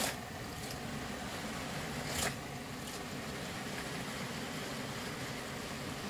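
Model train running along the track: a diesel locomotive hauling a long rake of goods wagons, making a steady running noise with a few clicks. The sharpest clicks come at the start and about two seconds in.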